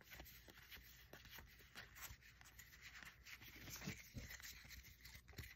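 Faint, irregular clicks and rubbing of Magic: The Gathering trading cards being slid apart and fanned through in the hands.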